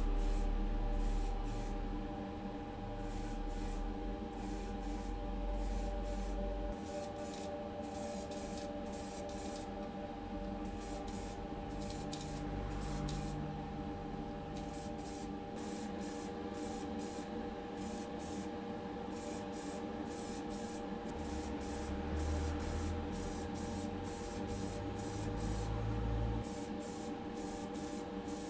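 Paint being sprayed for the colour coat on a small diecast car body: a hiss that starts and stops repeatedly, over a steady hum.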